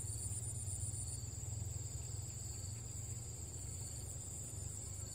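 Crickets chirring steadily in a continuous high-pitched trill; a second, higher trill stops about a second in. A low steady rumble runs underneath.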